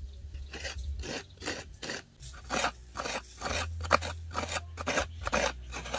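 Coconut half being grated against the metal blade of a seated coconut grater (kudkuran): even rasping strokes, about three a second.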